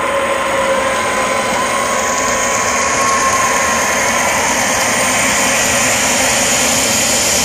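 Arena crowd roaring and whistling in a dense, distorted wall of noise that slowly grows louder, with a few held whistles in the first half.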